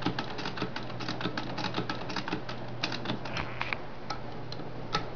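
Singer Model 66 sewing machine running and stitching fabric: a quiet, fast, light clicking of the needle mechanism over a low steady hum.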